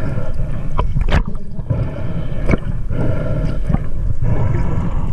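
Underwater sound picked up by a diver's camera: a pulsing low rush and gurgle of water with scattered sharp clicks.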